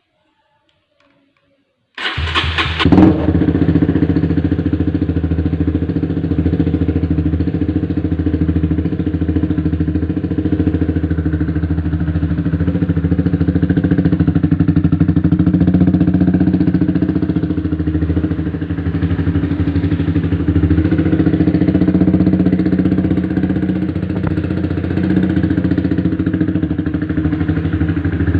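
Honda RS150's single-cylinder four-stroke engine, breathing through a replica Daeng exhaust, starting about two seconds in with a brief blip. It then idles steadily.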